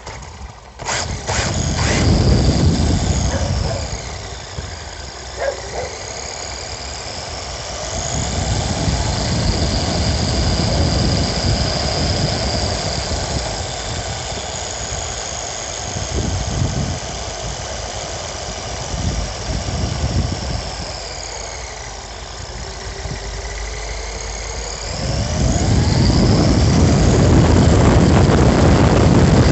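Electric motor and gears of an HSP 94123 radio-controlled car whining as it drives, heard on board. The whine rises and falls in pitch as the car speeds up and slows, over a low rumble from the tyres on asphalt that grows loudest near the end.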